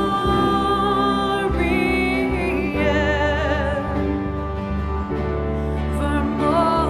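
Music: a singer holding long notes with vibrato over sustained instrumental accompaniment.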